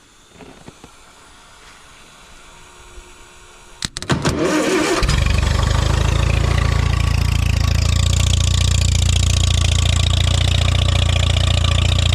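1956 International backhoe tractor engine being hotwired on a cold start. A few sharp clicks are followed by about a second of cranking, then the engine catches about five seconds in and runs steadily.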